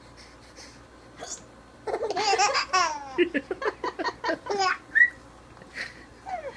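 A woman's hiccups and a four-month-old baby's laughter. A short sharp sound comes about a second in, then a loud squealing laugh and a run of short quick laughs, then another short sharp sound.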